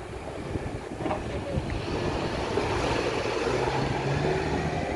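Low engine rumble that swells from about a second in and stays strong, with a low steady hum underneath in the second half.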